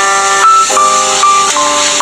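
Instrumental music, sustained notes in chords that change about twice a second, over a steady hiss.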